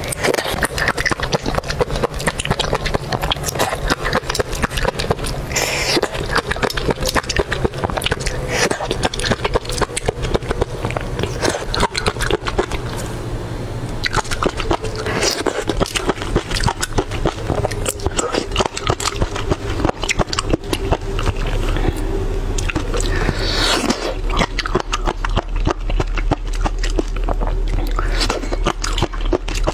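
Close-miked wet mouth sounds of eating mud snails: a rapid, continuous run of sucking, slurping and lip-smacking clicks as the meat is sucked from the thin shells.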